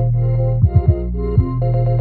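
Electronic background music: held synthesizer chords over a low bass with drum hits.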